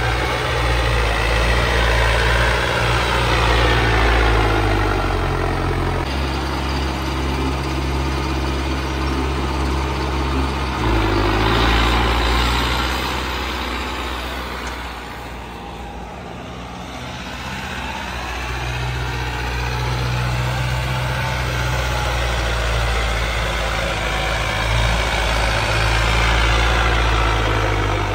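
Mahindra Arjun Novo 605 57 hp turbo-diesel tractor engine with a modified diesel pump, working steadily under load as it pulls a tine cultivator through the soil. It fades somewhat about halfway through as the tractor draws away, then grows louder again as it comes back.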